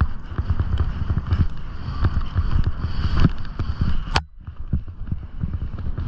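Skiing fast through powder snow: wind buffeting the microphone with dense rumbling low thumps, over the hiss of skis through the snow. There is one sharp click about four seconds in, after which the sound is quieter.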